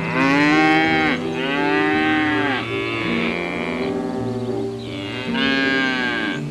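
Cattle mooing: a run of long, drawn-out moos, with a pause around four seconds in and another moo near the end. Soft background music plays underneath.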